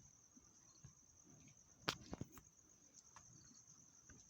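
Near silence with a faint, steady high-pitched whine and two short clicks about two seconds in.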